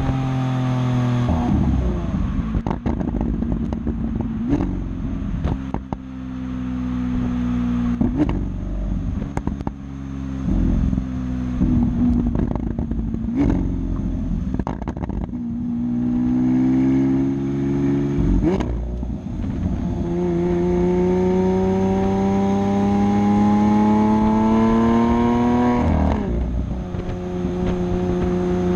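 Lamborghini Aventador's V12 engine through its factory race exhaust, running with a string of sharp cracks and pops in the first half. Then it accelerates hard, its pitch climbing and dropping suddenly at two upshifts, about two-thirds of the way through and near the end.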